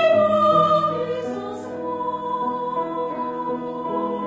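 Mixed choir singing held chords with piano accompaniment, the sound growing softer about a second in.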